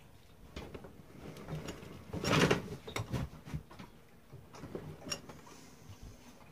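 Handling noise from an eyeshadow palette being moved and tilted in the hands: scattered light clicks and short rustles, the loudest about two seconds in.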